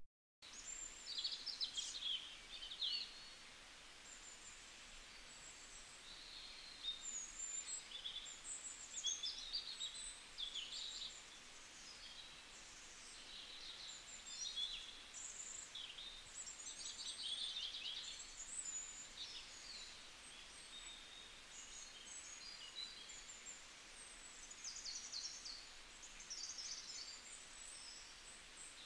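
Small birds chirping in quick high clusters, on and off, over a faint steady hiss.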